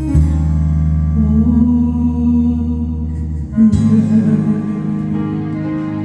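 Music: sustained chords with a held melody line over a steady low bass, changing chord just after the start and again a little past halfway.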